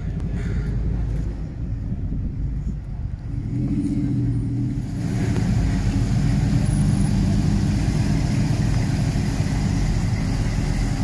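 Engine of a yellow 1930s coupe street rod running at low speed as the car drives slowly by, growing louder and fuller about four to five seconds in.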